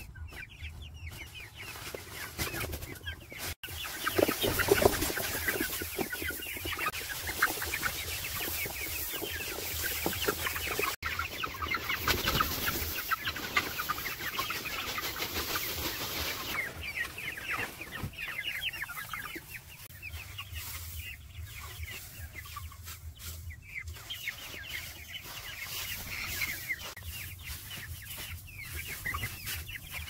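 A flock of chickens clucking and calling over one another without a break, at its loudest from about four to seventeen seconds in.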